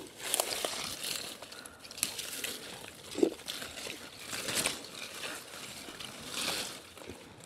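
Irregular rustling and crackling of leaves and dry vegetation being handled, with a soft thud about three seconds in.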